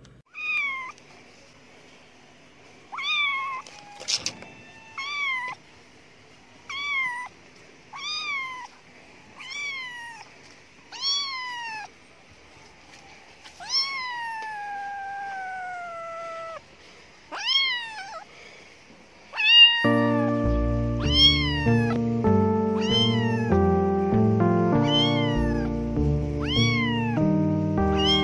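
Kitten meowing over and over, high-pitched meows rising then falling, about one a second, with one long drawn-out meow sliding down in pitch about halfway through. A sharp click about four seconds in. Background music comes in under the meows near the end.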